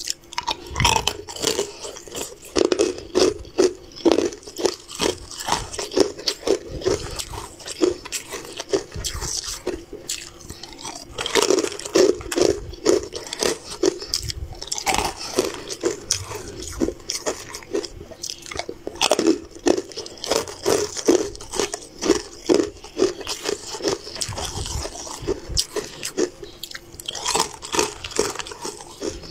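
Close-miked crunching and chewing: a person biting into hard, crunchy sweets, bite after bite in bouts with short pauses between them.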